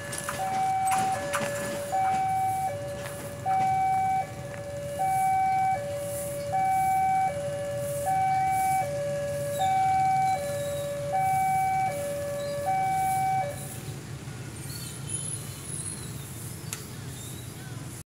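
Two-tone hi-lo siren, alternating between a higher and a lower note about every three-quarters of a second, stopping about 13.5 seconds in, over a low steady rumble.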